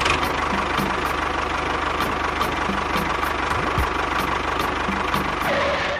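A small engine idling steadily with a regular knocking beat, two or three knocks a second.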